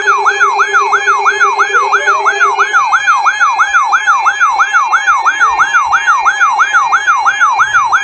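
RadioShack weather alert radio sounding its alert siren for a received warning, a Special Marine Warning: a loud warbling tone that sweeps up and down about four times a second over a steady underlying tone.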